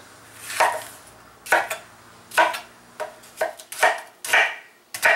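Kitchen knife chopping through an onion onto a wooden cutting board: about eight sharp, irregular knocks.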